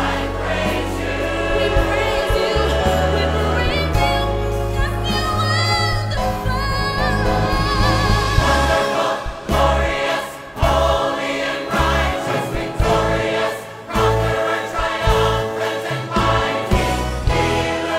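Live gospel worship song: a woman soloist sings with vibrato over a full church choir and orchestra. In the second half the music breaks into accented chords with brief pauses between them.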